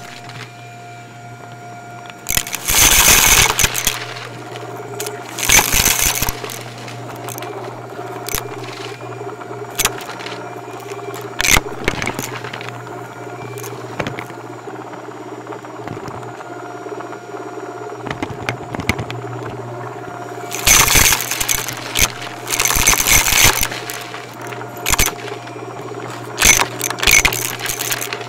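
Shark Navigator upright vacuum running with a steady motor hum, broken by several loud bursts of crunching as it sucks up dry debris. The longest bursts come a few seconds in and again about three quarters of the way through.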